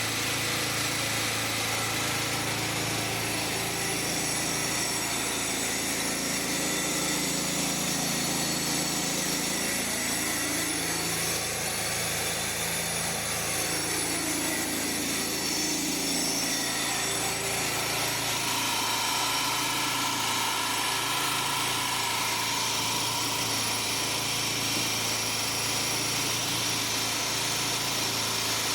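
Gas-engine pressure washer (5.5 GPM) running steadily under load over a steady hiss, its engine pitch dipping and recovering a few times partway through. It is drawing water from a newly connected IBC tote and running without trouble.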